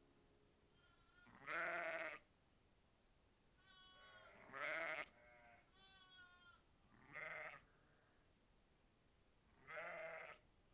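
Sheep and lambs bleating: four louder calls a couple of seconds apart, with fainter, higher, wavering bleats in between.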